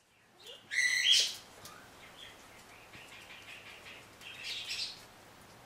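40-day-old Shih Tzu puppies squeaking and whining in short high-pitched cries: a loud cry about a second in, a run of small squeaks, and another louder burst near the end.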